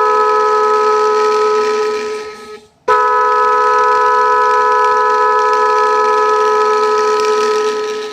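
Telolet horn powered from a 12-volt car battery, sounding a loud steady chord of several tones. It dies away about two and a half seconds in, then comes straight back on and holds until it fades near the end.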